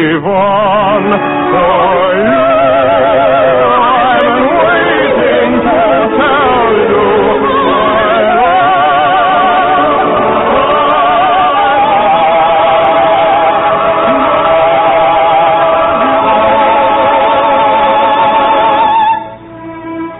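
A singer with vibrato and orchestral accompaniment in an operetta number from an old radio broadcast, with the sound cut off at the top. The song ends on a long held note that stops about nineteen seconds in.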